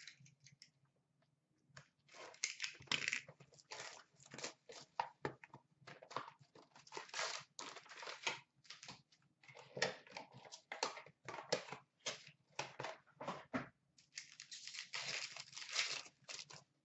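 A sealed hockey card hobby box being torn open by hand: plastic wrap crinkling and cardboard tearing, then the card packs rustling as they come out. A run of short rips and crackles starts about two seconds in and stops shortly before the end.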